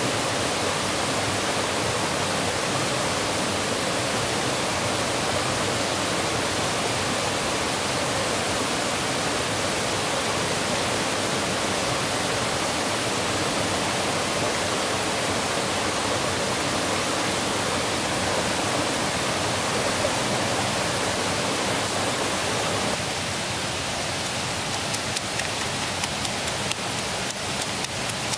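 Steady rush of flowing river water. About 23 seconds in the rush drops a little, and repeated light knocks begin: a wooden pestle pounding chillies in a wooden mortar.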